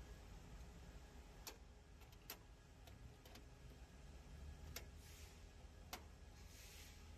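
Near silence: a faint low hum with a handful of faint, irregular clicks.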